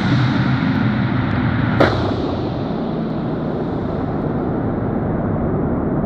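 Echoing rumble from a deep mine shaft as an object dropped into it falls, with one sharp knock about two seconds in as it strikes something; the rumble grows duller as the object goes deeper.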